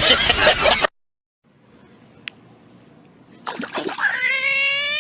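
A loud noisy sound cuts off about a second in. Near the end a domestic cat starts a long, drawn-out yowl with a slight upward rise in pitch.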